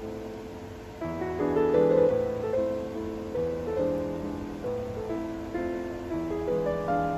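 Background piano music playing a gentle melody of single notes.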